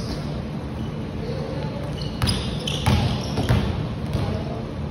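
Basketball dribbled on a wooden gym floor: about three sharp bounces roughly half a second apart, starting a little past two seconds in, ringing in a large hall.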